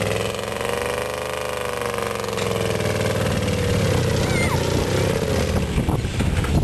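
Classic Range Rover's engine revving under load as it drives up a muddy track. Its pitch climbs over the first second or so, then slowly falls away.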